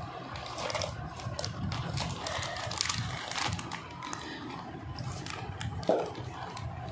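Clear plastic packaging bag crinkling and rustling as it is handled and pulled about, in a run of irregular crackles, with a brief pitched sound about six seconds in.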